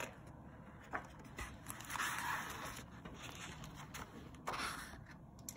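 A picture-book page being turned by hand: paper rustling and sliding, loudest about two seconds in, with a short tap about a second in and another rustle near the end.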